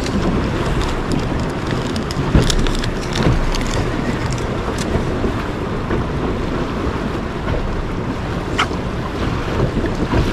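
Steady wind noise on the microphone with water lapping against a small fishing boat's hull, and a few light clicks about two to four seconds in and once near nine seconds.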